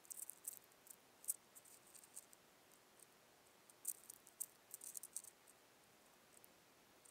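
Faint, scattered high-pitched clicks and scratches of a prairie dog nosing and pawing right at the camera in the snow, in two clusters that stop a little past halfway; otherwise near silence.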